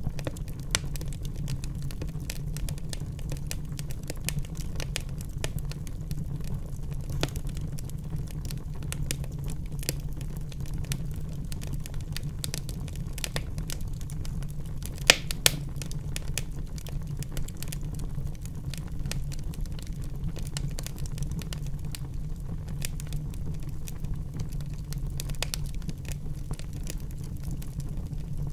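Charcoal grill with meat and vegetables cooking over open flames: irregular crackling and popping over a steady low rumble, with two louder pops about halfway through.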